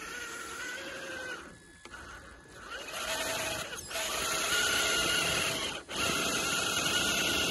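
Small electric motors and gears of RC crawler trucks whining steadily in spells. The whine drops off about one and a half seconds in, comes back louder about three seconds in, and breaks off briefly near six seconds.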